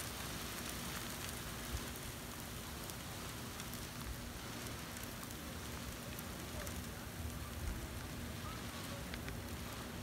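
Ice pellets falling steadily in a heavy winter storm, a steady hiss with faint scattered ticks as they hit the ground, with a faint steady hum underneath.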